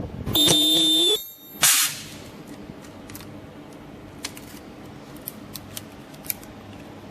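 Ultrasonic welding machine firing: a loud steady tone with a high whine lasts about a second as the horn welds the PET plastic. It ends in a short hiss of air, and then a low hum with scattered faint clicks follows.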